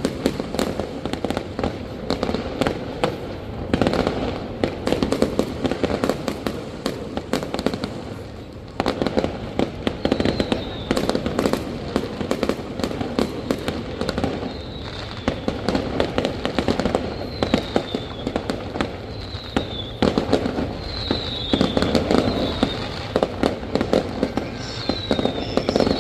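Fireworks going off in a dense, continuous volley of rapid crackling bangs, with a short lull about nine seconds in and brief falling whistles now and then in the second half.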